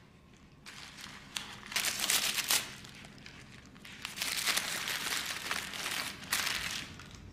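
Brown wrapping paper crinkling and rustling as a small gift is unwrapped by hand, in two bouts: one starting about a second in and lasting a couple of seconds, another from about four seconds in to near the end.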